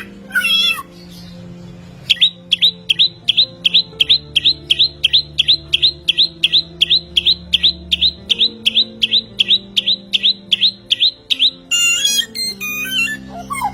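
A songbird repeats one short, sharp high call about four times a second for some ten seconds, then breaks into a varied warbling phrase near the end. Background music with slow sustained notes runs underneath.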